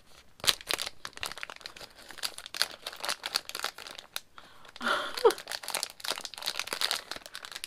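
Plastic makeup-sponge packaging being opened and handled, a continuous run of crinkling and crackling.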